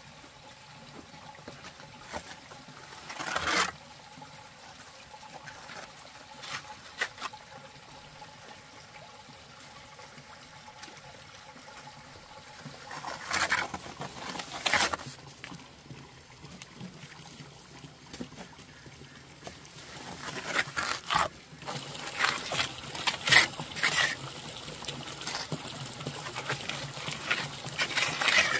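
Wet cement mortar being worked with a plastering float: irregular wet scraping and slapping strokes, sparse at first and coming thick and fast in the last third.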